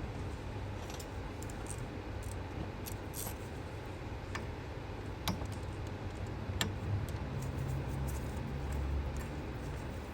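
Scattered light metallic clicks and taps of small hand tools and screws being handled while the coil pack retaining screws are fitted, over a low steady hum.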